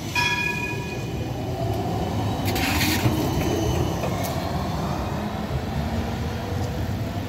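Siemens Combino tram passing close by on its rails and pulling away: a steady low rumble of wheels and motors. A high ringing tone fades out over the first two seconds, and there is a short hiss about two and a half seconds in.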